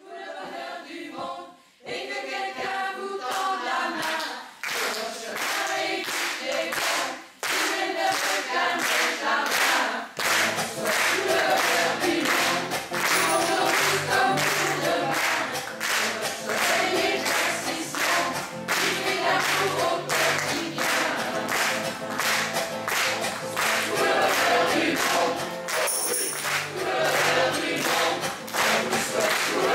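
Mixed amateur choir of men's and women's voices singing a French pop song, accompanied by strummed acoustic guitar. A bass part comes in about ten seconds in and fills out the accompaniment.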